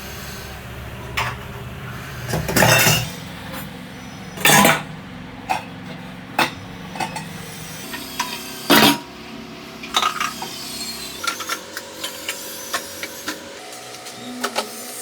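Dishes, glass and containers clinking and knocking as they are picked up and set down, with a few louder knocks among many light clinks.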